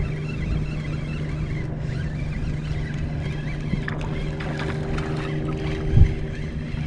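A spinning reel being cranked as a small trout is reeled in, over a steady low hum. A single low thump about six seconds in is the loudest sound.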